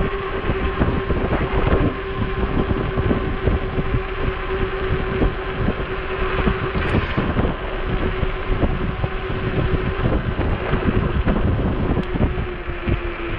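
Wind buffeting the microphone on a moving Ecotric 20-inch e-bike, over a steady hum from the bike's hub motor.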